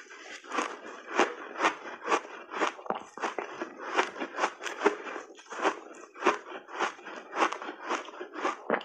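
Refrozen block ice coated in matcha powder being bitten and chewed: a steady run of crisp crunches, two or three a second.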